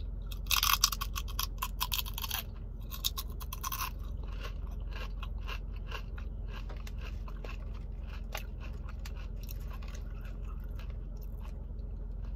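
Crunching and chewing of a thick-cut, kettle-style Dirty brand potato chip in the mouth. The loudest crunches come in the first two and a half seconds and again around three seconds in, then fade to quieter chewing crackles.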